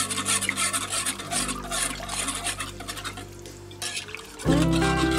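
Wire whisk stirring thin soup in a pot, with quick rhythmic strokes scraping through the liquid that die away after about three to four seconds. Acoustic guitar music comes in near the end.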